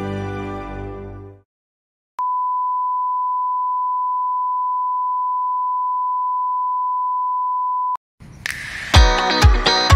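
Music fades out, then after a short silence a single steady test-tone beep, the tone that goes with TV colour bars, holds unchanged for about six seconds and cuts off abruptly. Music with a strong beat starts near the end.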